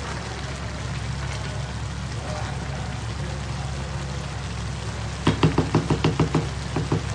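Rice simmering in chicken broth with a steady bubbling, then about five seconds in a spatula knocks against the pan in a quick run of about ten taps.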